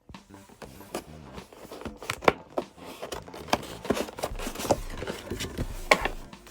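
Plastic shrink wrap being slit and peeled off a trading card hobby box, crackling and crinkling in many short, sharp bursts.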